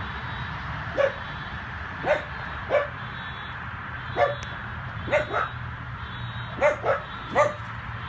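Dachshund puppy barking in short, high yips, about nine of them at uneven intervals, several in quick pairs, over a steady background hum.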